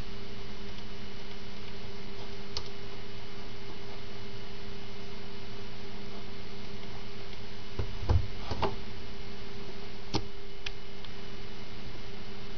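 Steady electrical hum and hiss, with a few short knocks and clicks, the loudest a brief cluster of thumps about eight seconds in.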